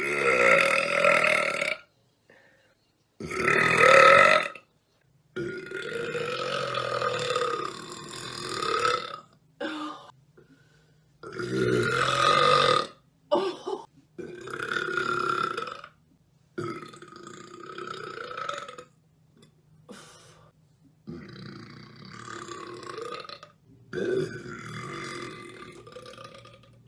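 A woman burping over and over from a stomach full of gas: about nine long, bassy belches with short pauses between them. The loudest comes about four seconds in, and one is drawn out for about four seconds.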